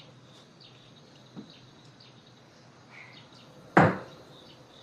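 A bowl is set down sharply on a wooden table once, a little before the end, as a single loud clack. Before it there is only quiet room tone with faint high chirping and a small tap.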